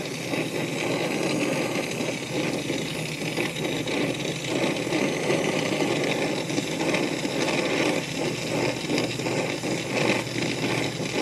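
Brazing torch flame hissing steadily on the copper joint of a filter drier wrapped in a wet heat-barrier rag, reheating a joint that the wet rag keeps cooling down, with a steady low machine hum underneath.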